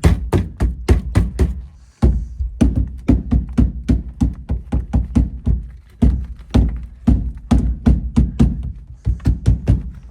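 A fast series of hard thuds, about four a second, stopping abruptly about two seconds in and then resuming.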